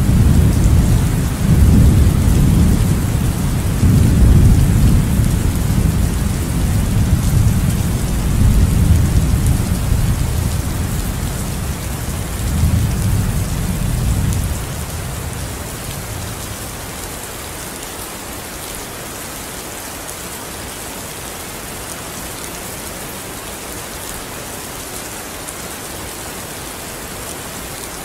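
Rain and thunder: long rolling rumbles of thunder over steady rain for about the first half, then the rumbling fades out and only the even rain hiss goes on.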